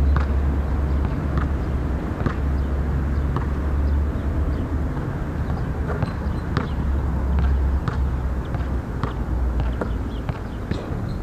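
A basketball bouncing on an outdoor hard court, a dozen or so sharp thuds at irregular intervals, over a steady low rumble that is the loudest thing throughout.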